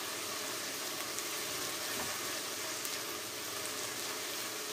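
Chopped vegetables sizzling steadily in hot oil in a pan as they are stirred with a spatula, with a few faint ticks from the stirring.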